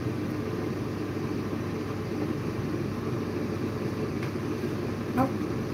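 Steady low hum of a running fan motor, with a brief voice sound about five seconds in.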